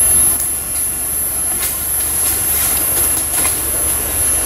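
Modified off-road 4x4 vehicle's engine running steadily, with a constant high-pitched whine over it and a few sharp clicks.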